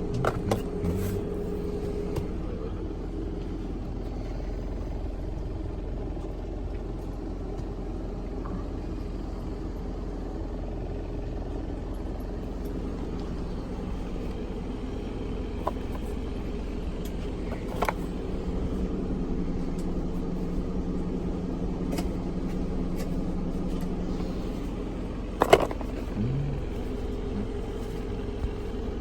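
Steady idling engine hum with a low rumble, broken by a few sharp clicks and clinks of tools being handled, the loudest about three quarters of the way through.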